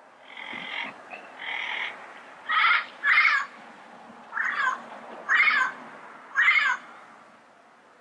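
Yellow-headed amazon parrot calling: two softer squawks, then five loud, harsh, short squawks about a second apart.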